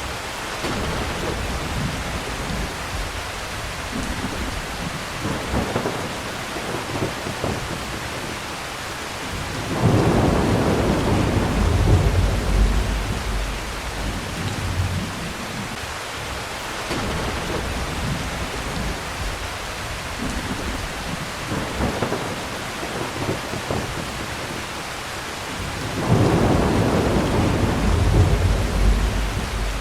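Steady heavy rain with rolling thunder: two long, loud rolls, one about a third of the way in and one near the end, with fainter rumbles between.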